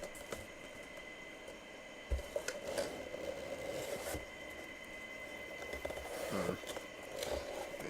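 Rustling and scraping from a boxed jersey's packaging being opened and handled, with a few light knocks and clicks.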